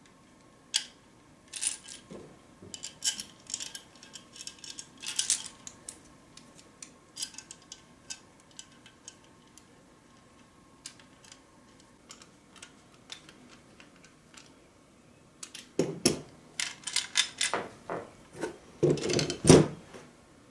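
Metal clicks and clinks of a PanaVise circuit board holder's arms, slide pieces and knobs being handled and fitted together by hand. A denser run of louder knocks comes near the end, as the assembled holder is set down on the desk.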